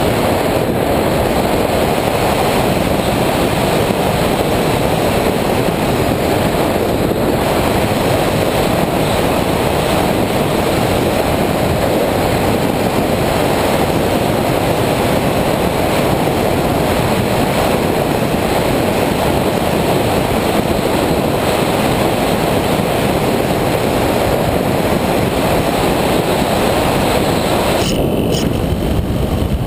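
Steady rushing noise of a Multiplex EasyStar II electric RC plane in flight, picked up by the GoPro on board: air rushing past and the propeller running. The sound turns duller near the end.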